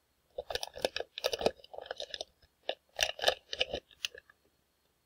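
Anti-static shielding bag crinkling and crackling as a small circuit board is pulled out of it, a run of crinkles that stops about four seconds in.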